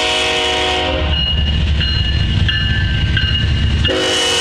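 Nathan K5HLL five-chime air horn on a CSX GE GEVO diesel locomotive blowing close by. It breaks off about a second in, leaving the low rumble of the locomotive passing, and sounds again near the end.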